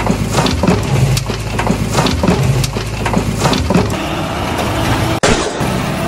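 Gravel pouring out of a model dump truck's tipped bed and clattering down a dirt slope, a dense run of small rattles and cracks over a steady engine hum. The sound cuts out briefly about five seconds in.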